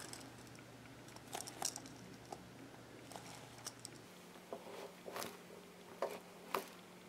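Faint handling noises as fingers squeeze and turn a soft foam squishy toy: scattered light taps and rubs of fingers and nails on the toy.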